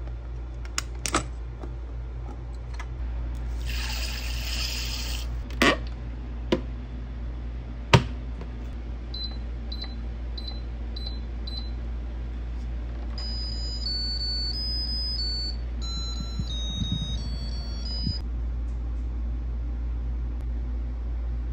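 A few sharp clicks and a brief rush of noise, then a Zojirushi NS-ZCC10 rice cooker's control panel beeping five times as its menu button is pressed. It then plays its short electronic chime melody, the signal that a cooking cycle has started.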